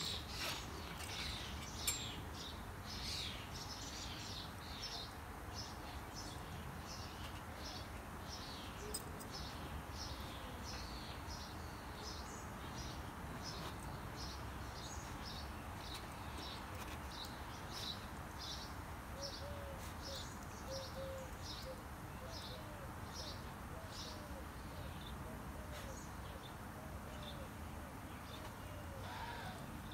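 Small bird chirping over and over in the background, about two short chirps a second, falling silent a few seconds before the end. A couple of sharp knocks come in the first two seconds as the puppy scrambles onto a patio chair.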